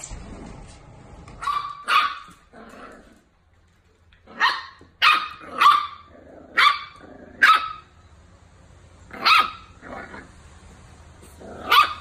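Miniature dachshund puppies barking: about ten sharp barks in short runs, some in quick pairs, with a brief pause near the middle.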